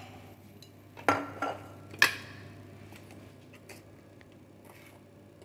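Kitchenware clinking and knocking as it is handled: a sharp knock about a second in, a lighter one just after, and a bright clink at about two seconds, each with a brief ring.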